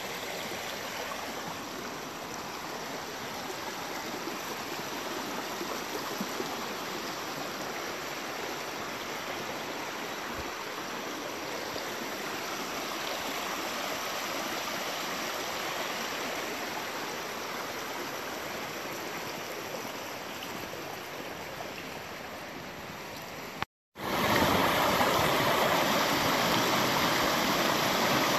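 Shallow rocky creek running and splashing over stones, a steady rush of water. About 24 seconds in it cuts off for a moment and resumes louder, as rapids with white water.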